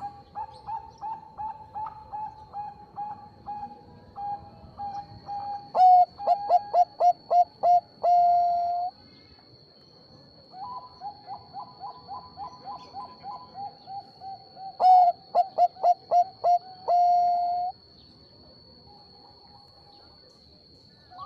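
Zebra dove (Bangkok-bred perkutut) singing two song phrases. Each phrase is a fast run of short, even coos that builds to a few loud, sharp notes and ends on one long held coo.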